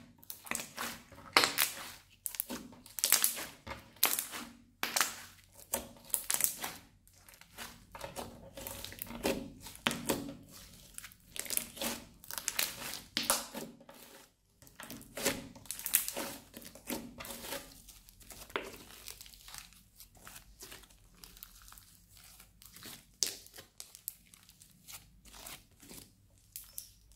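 Hands squeezing, stretching and folding a thick crunchy slime mixed with small beads. It crackles and pops in quick irregular bursts as trapped air and beads are squeezed.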